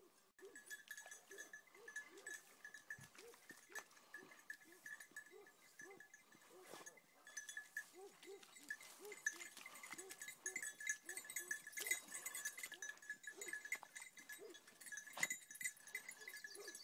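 Beagles giving tongue on a hare's scent: rapid, faint, short yelping cries, several a second, rising and falling in bursts. A steady high-pitched ringing note sounds alongside.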